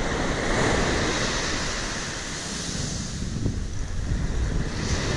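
Surf breaking and washing up a beach, with wind buffeting the microphone.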